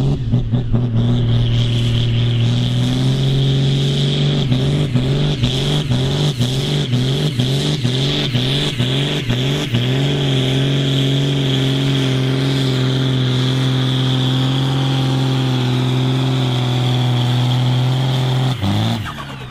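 Ford TW-25 tractor's six-cylinder turbo diesel running flat out under full load while pulling a sled. A steady high whistle sits over the engine. For a few seconds early on the engine note pulses about one and a half times a second, then it holds steady, and near the end it drops sharply.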